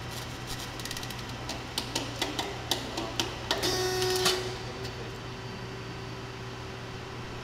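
A machine running under test. Sharp mechanical clicks come for about three seconds, then a short whir about four seconds in, which settles into a steady hum over a constant low drone.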